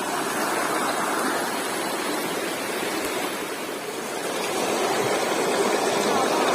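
River water rushing, a steady noise that swells a little about four seconds in.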